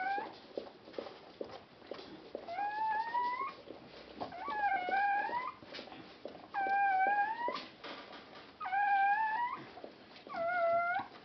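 Newborn Chodský pes puppy crying: about six high, thin cries, each close to a second long, rising in pitch and then held, coming roughly every two seconds. Faint clicks come between the cries.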